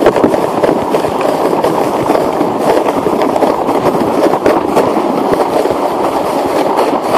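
Sled sliding downhill over crusty snow: a loud, steady scraping with many small crackles, mixed with wind on the microphone.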